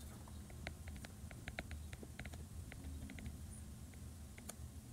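Faint, irregular clicks and taps of a stylus writing on a tablet screen, over a low steady room hum.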